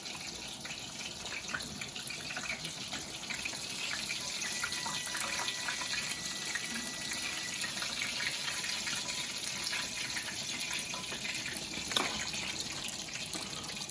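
Breaded chicken cutlets frying in hot oil in a pan: a steady sizzle with fine crackling. There is a single sharp click near the end.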